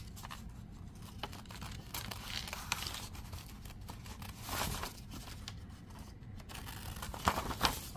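Long-bladed scissors snipping through a sheet of paper, with the rustle of the sheet being turned and handled between cuts. The sharpest, loudest snips come twice in quick succession near the end.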